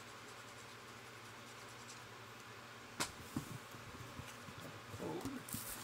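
Quiet room tone with a steady low hum. About three seconds in there is a single sharp click, followed by faint small taps and rustles of handling.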